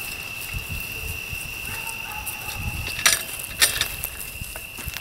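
Metal game cart wheeled and turned on grass, with two sharp clicks of its frame about three seconds in, over a steady high-pitched whine.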